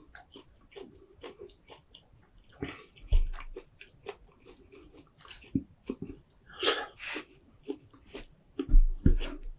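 Close-miked chewing and wet mouth smacks of someone eating a seafood boil, with scattered short clicks. Two louder low thumps, about three seconds in and again near the end.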